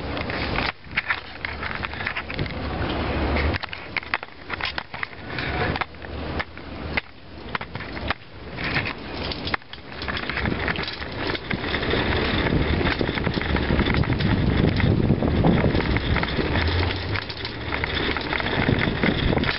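Wind buffeting a moving camera's microphone, with irregular crackling and rattling handling noise; it grows a little steadier and louder about two-thirds of the way through.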